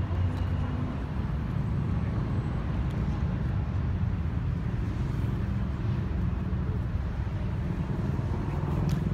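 Steady low rumble of outdoor city ambience with distant traffic and faint voices.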